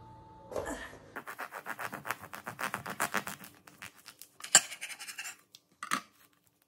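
Serrated bread knife sawing through a cling-film-wrapped bread roll sandwich in rapid back-and-forth strokes, a scratchy rasp of blade on crust and plastic wrap. A sharp knock about four and a half seconds in, and another shortly before the end.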